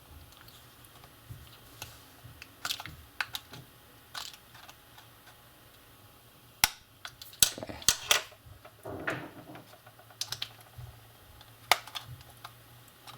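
Irregular small plastic clicks and snaps, in a few short clusters, as a flat screwdriver pries apart the snap-fit plastic housing of a Sony Xperia Mini phone.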